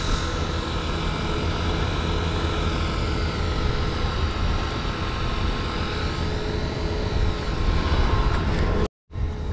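Large diesel farm tractor engine running steadily at a constant speed, a continuous even drone.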